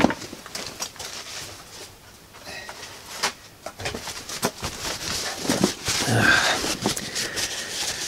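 Paper towel rustling and crumpling as greasy hands are wiped clean, with scattered small clicks and handling noises that get busier about halfway through.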